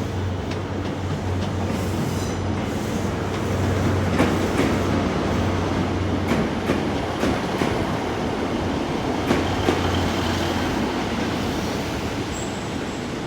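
Diesel train running into the station: a steady engine hum under rolling wheel noise, with wheels clicking over rail joints. A faint high squeal comes in near the end.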